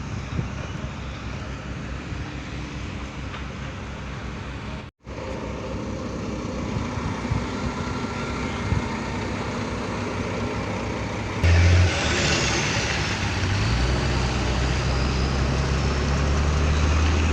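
Wheel loader's diesel engine running. About two-thirds of the way through the sound jumps suddenly louder, then settles into a steady, deep engine note.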